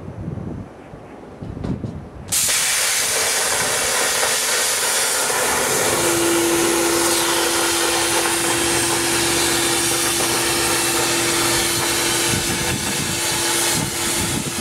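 Plasma cutter cutting steel plate: a loud, steady hiss of the arc and air jet that starts abruptly about two seconds in, with a steady tone joining it partway through.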